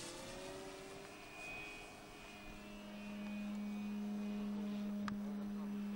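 Phoenix Models Volcano electric RC model airplane flying overhead: its Plettenberg Predator motor and 24x12 propeller hum at a steady pitch, growing louder from about two seconds in. A single sharp click sounds near the end.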